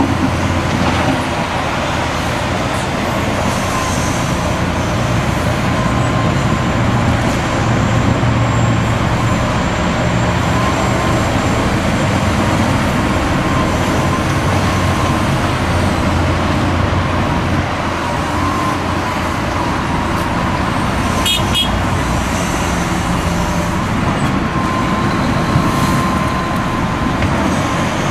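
Hitachi Zaxis 250LCN excavator's diesel engine and hydraulics running steadily under load as it digs and loads earth into a steel tipper body, with a thin steady whine through it. A quick run of sharp clanks comes about three quarters of the way through, and motorway traffic runs behind.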